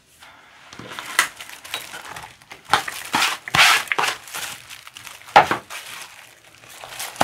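Several rustling, scraping bursts of hand food prep: chopped green onions and red chili slid off a plastic plate into a glass bowl of seasoned boiled radish greens and spread by hand.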